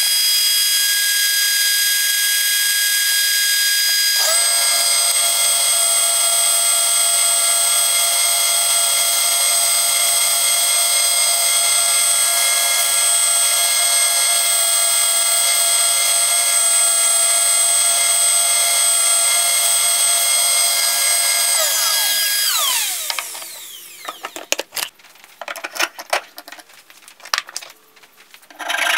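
Benchtop oscillating spindle sander running steadily with a whine. About 22 seconds in it is switched off and winds down, its pitch falling away, followed by a few light knocks.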